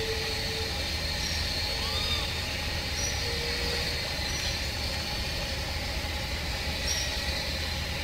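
Lagoon-side forest ambience: a steady low rumble and a constant high hiss. Over it, a short low note sounds three times in the first few seconds, and faint short high chirps come now and then.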